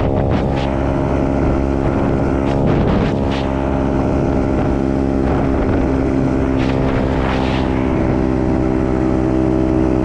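125cc dirt bike engine running at a steady cruising speed, its pitch holding even throughout.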